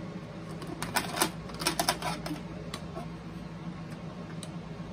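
Plastic clicks and rattles as a power cord is pulled out of the boombox's plastic rear cord compartment, in a quick cluster about a second in, then a few scattered clicks. A steady low hum runs underneath.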